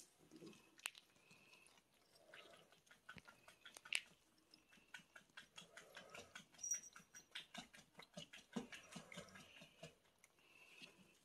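Two cats eating dry food from bowls: faint, quick crunching of chewing, with a few sharper clicks.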